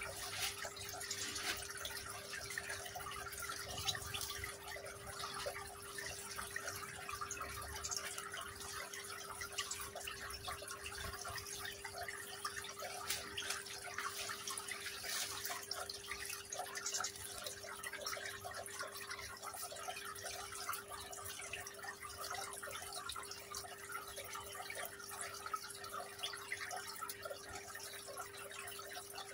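Water trickling and dripping down a small tiered decorative rock fountain, over a steady hum.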